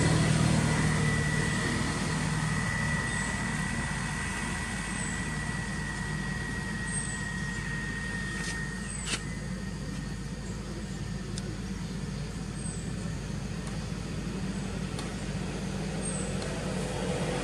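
Steady low hum of a motor vehicle engine running nearby, with a thin high whine over it that stops about nine seconds in with a click. Faint high chirps recur every couple of seconds.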